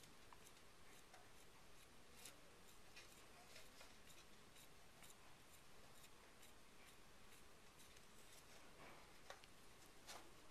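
Near silence with faint, scattered clicks and scratches of a small drill bit being twisted by hand in a knife-handle holder, cutting slowly through a wooden support beam. A couple of slightly louder clicks come near the end.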